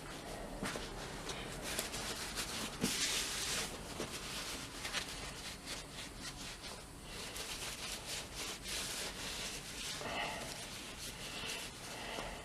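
A rag rubbing and wiping a steel sledgehammer head coated in WD-40, with small knocks and a short hiss about three seconds in.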